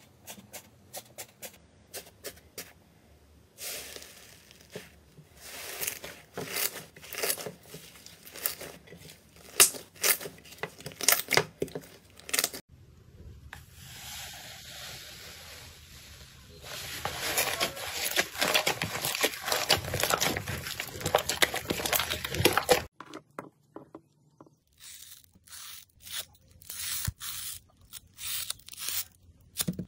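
Crisp crackling and crunching as hands press and break the dried crust of iceberg slime. About three-quarters of the way through, it changes to scissors snipping a foam sponge with sharp clicks.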